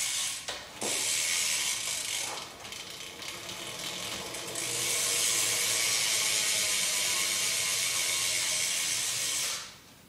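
BMX rear wheel spun by hand, its stock rear hub's freewheel pawls ratcheting in a fast, continuous buzz that is loudest over the second half and stops abruptly near the end as the wheel is halted.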